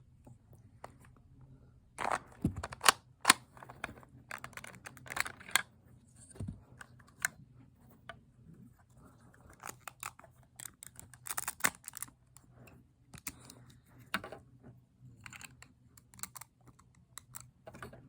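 Plastic Lego pieces of a brick-built pistol clicking and knocking as it is taken apart by hand: irregular sharp clicks in clusters, with a few louder snaps.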